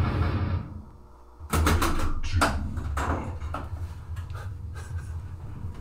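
Stern Lightning pinball machine clacking mechanically: after a short lull, a run of sharp, irregular clicks and knocks starts about a second and a half in.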